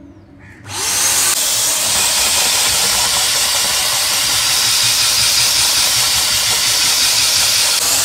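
Ingco VC14122 800 W wet-and-dry vacuum cleaner switched on less than a second in: its motor spins up quickly and then runs steadily with a loud, even rush of air.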